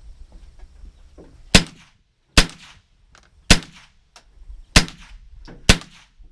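A rifle firing five shots in a row about a second apart, each a sharp crack with a short ringing tail; the last shot empties the magazine.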